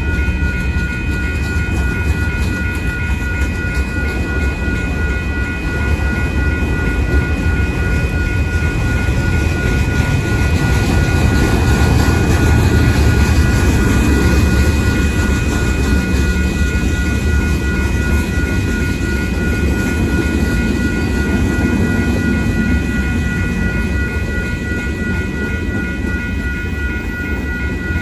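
Freight train rolling past a grade crossing, a steady rumble of wheels on rail that swells a little around the middle, with the crossing's warning bell ringing over it.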